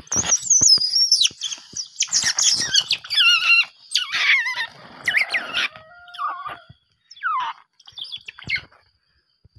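Asian small-clawed otter pup, about two months old, squealing and chirping over and over in high, wavering calls, thinning to a few falling squeals near the end.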